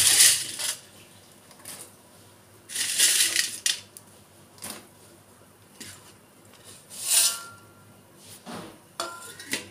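Cooking sounds at an iron kadhai of boiling water on a gas stove: a few short clattering, rustling bursts as dry instant noodle cakes are dropped in and handled. Just after nine seconds a steel lid clinks against the pan with a brief metallic ring.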